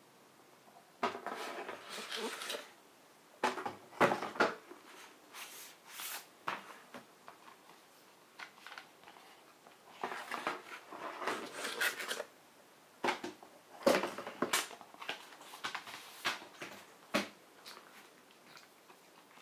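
Hands handling Blu-ray packaging: cardboard and paper sliding and rustling in irregular bursts, broken by sharp clicks and knocks from plastic disc cases.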